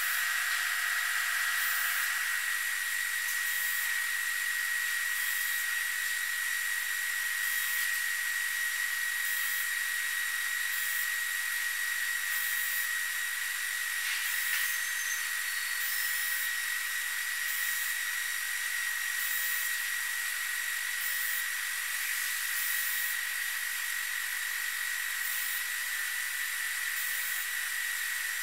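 Induction heating machine running steadily while heating a saw-blade tooth for hardening: a constant hiss with a steady high-pitched whine that does not change.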